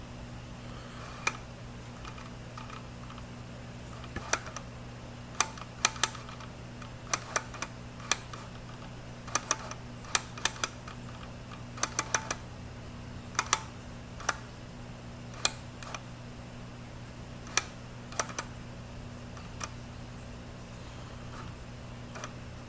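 Autofocus clicking from a Nikon 70-200mm f/2.8 AF-S VR ED lens on a D7000: sharp clicks at irregular intervals, singly and in quick pairs or threes, as the focus settles on its point in continuous AF with focus-tracking lock-on turned off. The clicks sound with VR on or off, so they are not the VR, and the uploader concludes the noise is normal for this lens.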